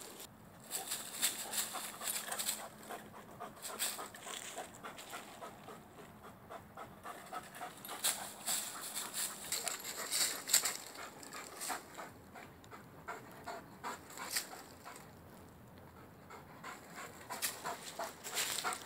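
A Rhodesian Ridgeback panting as it moves about and paws at a tree trunk, with irregular rustling and crunching of dry fallen leaves underfoot.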